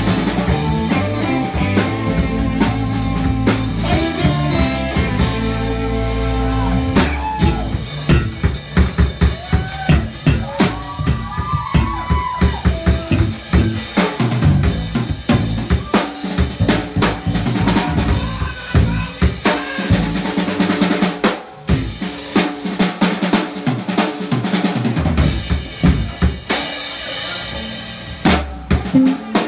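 Live band with electric and acoustic guitars and a drum kit playing; about seven seconds in the full band drops back and the drum kit carries on with rapid strikes, a drum break with only sparse guitar notes over it.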